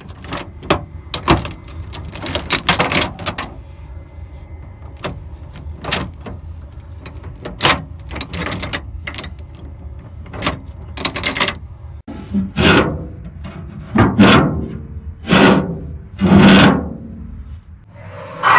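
Irregular knocks and clatters over a steady low rumble, followed later by four longer swelling bursts of noise.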